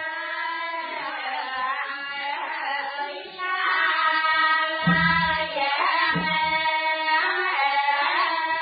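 Background music: a gliding melodic line over a steady accompaniment, with a few low drum beats in the second half.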